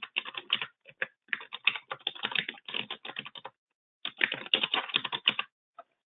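Typing on a computer keyboard: quick runs of keystrokes with a short pause about three and a half seconds in, then a few separate clicks near the end.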